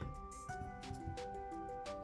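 Background music: held melodic notes that change in steps over a soft, steady beat.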